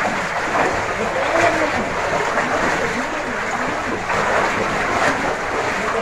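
Shallow water sloshing and splashing steadily as people wade through a flooded tunnel.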